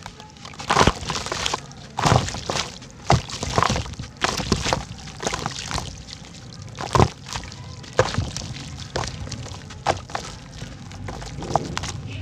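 Large cylinders of dried red dirt crumbling and breaking apart in water, with irregular sharp cracks and thuds as chunks break off and drop, sometimes several in a second.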